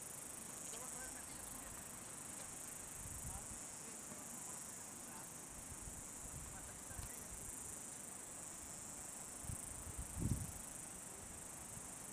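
Steady high-pitched insect chorus with a few faint low thumps, the strongest about ten seconds in.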